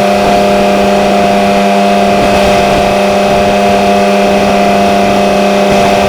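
Caterpillar 329E excavator's diesel engine running loud and steady at full throttle, holding one even pitch.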